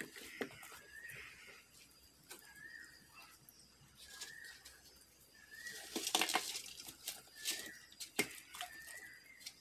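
Snakehead fish being handled in a plastic basin: scattered wet clicks and rustles, with a louder rustle about six seconds in. A bird chirps repeatedly in the background, a short call about once every second or so.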